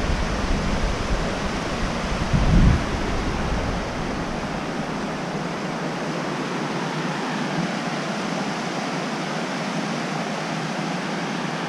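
Large waterfall's falling water, a steady even rush. About two and a half seconds in there is a brief low rumble.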